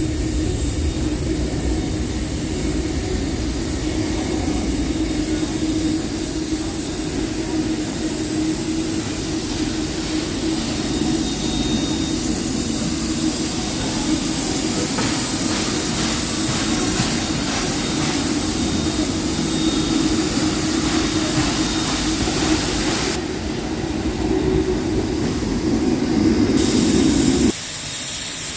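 Steam locomotive 5917 with a steady hiss of steam over a low, even hum and a few faint clicks partway through. The high hiss stops for a few seconds near the end, and the low hum cuts off suddenly just before the end.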